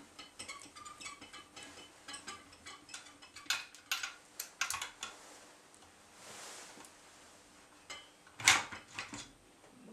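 Metal parts of a homemade Stirling-engine thermomechanical generator handled by hand during disassembly: a run of small metallic clicks and taps, a cluster of sharper clinks around four seconds in, and one louder clank near the end.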